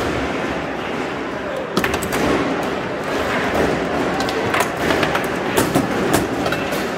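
Sharp, irregular clacks of foosball play, the hard ball struck and banging against the table, over a steady murmur of many voices.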